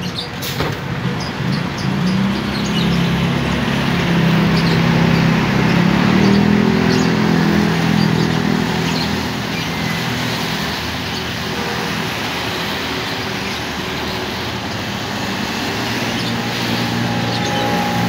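A large intercity coach's diesel engine pulling away, its note rising and falling as it gathers speed, over a steady hiss of traffic on a wet road. Near the end another vehicle's engine comes up as a van approaches.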